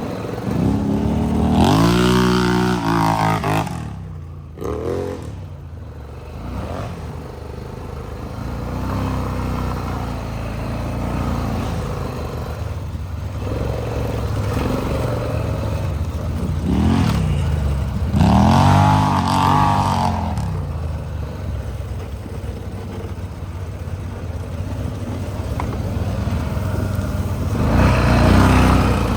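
ATV engine running under way, revving up and easing off three times: near the start, about two-thirds through, and near the end, with steadier running in between.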